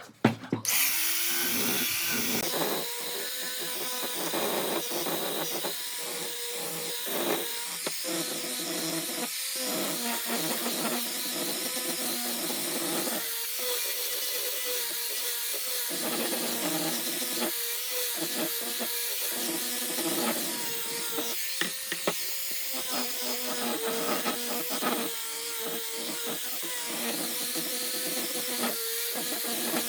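Electric power tool running steadily with a constant whine, with scattered clicks as it works wood.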